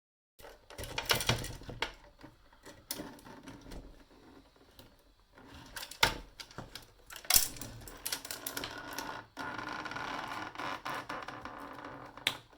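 Clicks, sharp knocks and rattling of a plastic electronics housing being worked open by hand, with the loudest knocks about a second in and around six and seven seconds in, and a denser scraping rattle later on.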